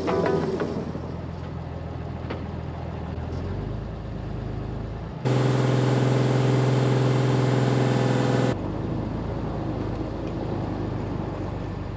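Diesel pickup truck engine running steadily with a low hum. About five seconds in, a louder drone starts abruptly and cuts off again about three seconds later.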